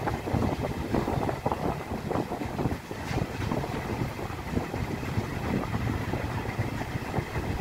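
A passenger train running along the track, heard from outside an open coach window. The wheels rumble steadily on the rails with irregular clattering and knocks.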